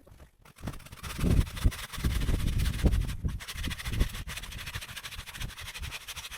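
A hand saw cutting into a tree trunk, a continuous run of back-and-forth sawing strokes that starts about half a second in.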